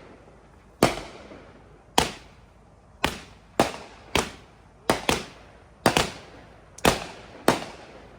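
Consumer fireworks finale: about eleven sharp bangs at uneven intervals, some in quick pairs, each trailing off in an echo.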